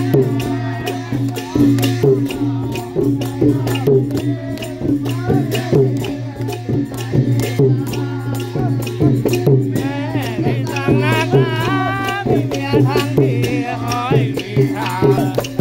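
Thai klong yao long-drum band playing a fast processional rhythm, long drums under a dense clatter of small hand cymbals. A high wavering melody joins about ten seconds in.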